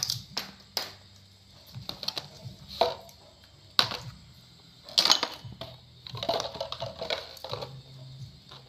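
Irregular clicks and knocks of plastic kitchenware being handled and set down: plastic bowls, a plastic cutting board and a knife on a woven floor mat.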